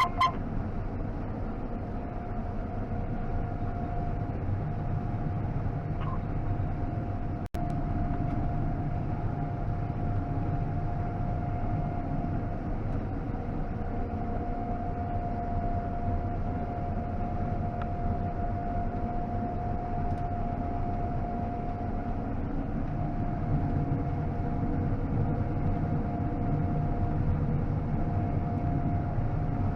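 John Deere combine running steadily while harvesting soybeans: an even low mechanical drone with a steady high whine over it. Its straw chopper has freshly replaced hammers.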